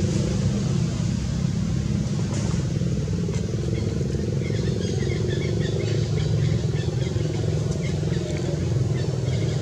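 A motor engine running steadily, a low rumble that does not change, with a few faint high chirps between about four and six seconds in.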